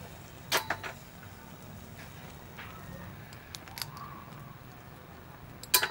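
Metal tongs clicking against snail shells on a wire grill rack: a quick cluster of sharp clicks about half a second in, two lighter clicks near four seconds, and the loudest pair near the end.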